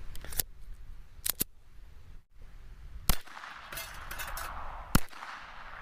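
Glock-style pistol: a few small clicks as the magazine is seated, then two shots about two seconds apart.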